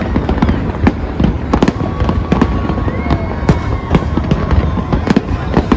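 Aerial fireworks display: a continuous barrage of sharp bangs and crackles, several a second, over a steady low rumble of booms.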